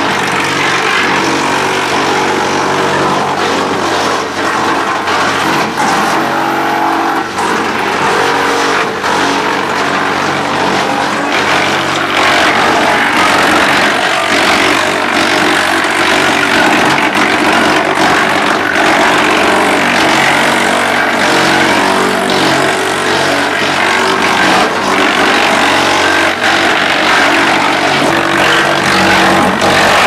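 Teknamotor Skorpion 500EB stationary drum wood chipper running under load, its knife drum chipping sawmill slab edgings fed in on the infeed conveyor. A loud steady machine drone with rapid cracking and knocking of wood throughout, a little louder after the middle.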